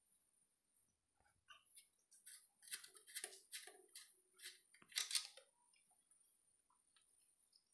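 Faint metallic clicks and taps of a spanner on the oil drain plug of a Greaves 6.5 hp diesel engine as the plug is loosened, a scattered run of sharp ticks that is loudest about five seconds in.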